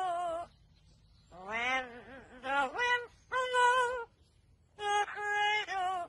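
Amazon parrot singing in a wavering, operatic voice: five short sung phrases, each with a wobbling vibrato, separated by brief pauses.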